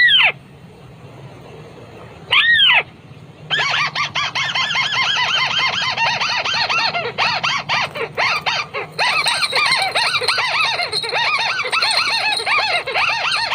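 White-browed crake calling: two single loud arching notes, then, from about three and a half seconds in, a long rapid run of repeated arching notes, several a second, that goes on to the end.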